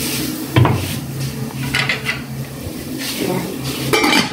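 Wooden spatula knocking and scraping in a large aluminium cooking pot over lightly sizzling food, a few separate knocks, then the aluminium lid clanking onto the pot near the end.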